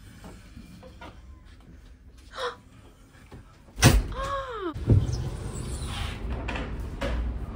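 A ship's cabin door being opened and shut: a loud knock about four seconds in, a brief squeal that rises and falls, then a second knock about a second later.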